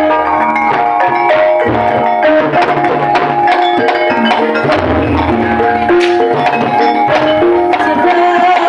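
Loud gamelan-style percussion music played over a sound system: hand drums beating fast under ringing notes from struck mallet instruments.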